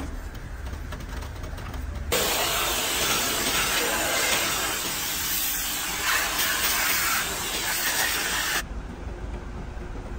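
Compressed-air blow gun hissing loudly as it blows cleaning diesel off a washed metal engine part. It starts abruptly about two seconds in and cuts off abruptly about two seconds before the end.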